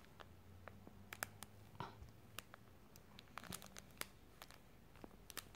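Near silence broken by faint, scattered small clicks and soft crinkling from a baby's hand working a crinkly fabric toy.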